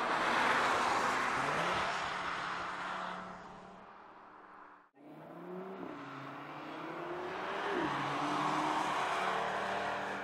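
Audi RS 3's 2.5 TFSI turbocharged five-cylinder engine passing at speed and fading away. After a sudden break it is heard accelerating, the pitch climbing twice and dropping at each upshift, then swelling and fading again.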